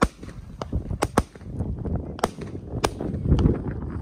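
A 'White Tiger' ground-launched firework firing a run of shots, about seven sharp cracks in four seconds at uneven spacing, with a low rumble that swells near the end.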